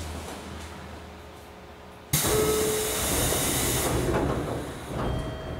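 Air-operated sliding doors of a JR Kyushu 811 series electric train opening at a station stop. About two seconds in a sudden loud hiss of air comes as the doors slide open and lasts about two seconds, over the train's steady low hum while standing.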